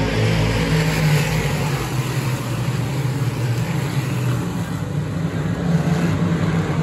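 Sportsman modified race cars running at speed around a dirt oval, their engines making a steady, loud drone.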